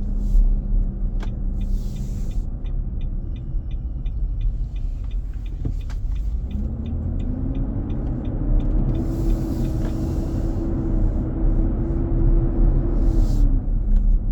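Heard from inside the cabin of a 2023 Nissan Armada while driving: a loud, steady rumbling roar from the engine's fan clutch, which the dealer found staying engaged. Its pitch rises about six seconds in, holds, and falls again near the end.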